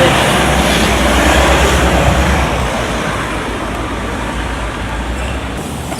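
Road traffic noise: a steady deep vehicle rumble under a wash of road noise, easing off gradually and with the rumble dropping away about five and a half seconds in.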